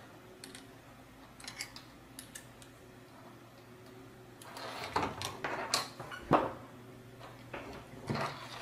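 Light clicks and knocks of acrylic robot-arm plates, small bolts and nuts being handled and pressed together by hand, with a cluster of louder clicks about two-thirds of the way through.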